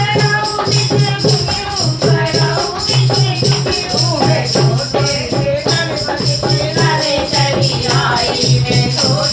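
A Hindi devotional bhajan to Shiva being sung to a steady beat, with a shaker-like rattle.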